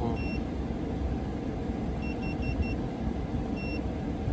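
Short, high electronic beeps: one near the start, a quick run of four about two seconds in, then two more single beeps, over a steady low rumble.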